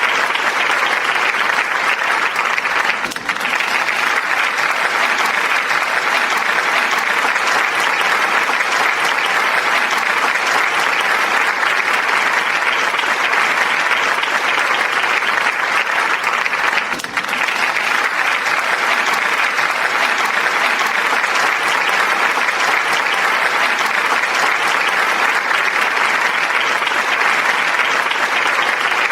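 Large audience applauding, a dense, steady wash of many hands clapping, with two brief dips about 3 and 17 seconds in.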